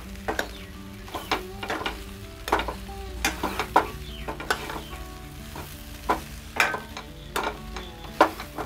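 A steel spoon stirring sliced bitter gourd in a stainless steel kadhai, with irregular scrapes and knocks against the pan every second or so, over the sizzle of the vegetables frying in oil.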